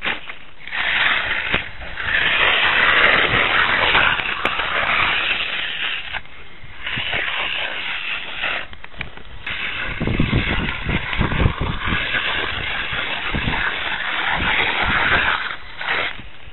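Radio-controlled scale rock crawler's electric motor and gearbox whining in spells as it is driven over rocks, dropping out briefly twice, with some low knocks partway through.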